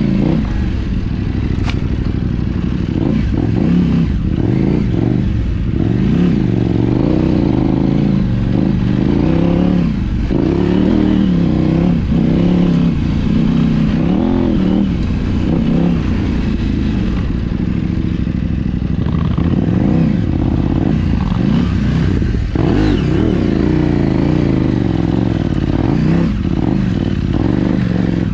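KTM 790 Adventure R's parallel-twin engine revving up and down continually as it is ridden off-road, the pitch rising and falling with every throttle change. Occasional knocks and clatter from the rough trail come through over the engine.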